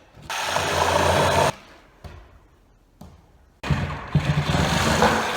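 Farm machinery engine running in two stretches, the first short, the second longer, each starting and stopping abruptly.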